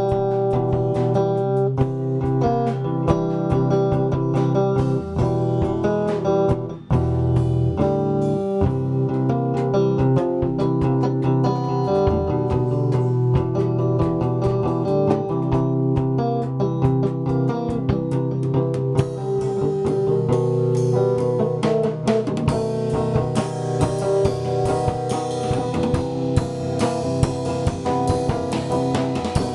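Electric guitar and a drum kit playing together in a live jam, with one brief drop in the playing about seven seconds in. The cymbals and highs grow brighter about two-thirds of the way through.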